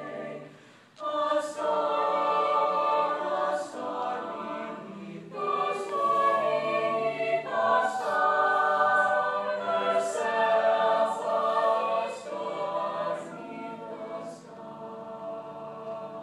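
Mixed chamber choir singing sustained chords, with crisp 's' consonants sounding together across the voices. The choir breaks off briefly about a second in, comes back in loud, and settles to a softer held chord near the end.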